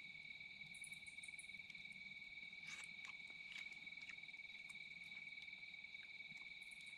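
Insects trilling in a steady, continuous high-pitched chorus, with a few faint scattered clicks.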